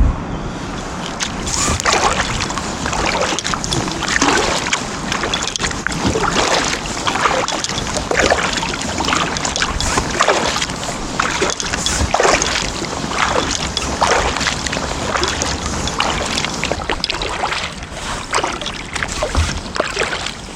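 Kayak paddle blades dipping and splashing in flat water, about one stroke a second, over a low steady rumble.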